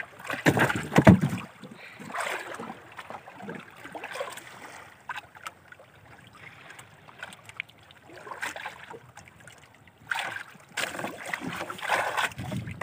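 Wind buffeting the microphone and water slapping against a small wooden outrigger boat at sea, in uneven gusts that are loudest about a second in and again near the end.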